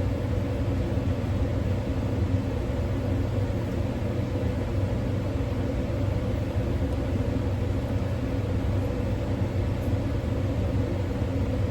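Steady low mechanical hum of a running motor or machine, unchanging throughout.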